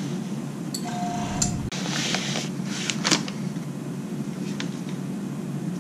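Steady low hum of workshop machinery, with the rustle and light clicks of gloved hands handling a masked plastic chassis part. A longer burst of rustling comes about two to three seconds in.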